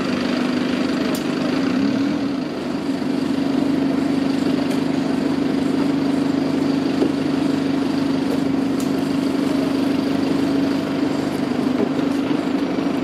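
London Overground electric multiple unit pulling slowly away from the platform, giving a steady electrical hum from its traction and auxiliary equipment.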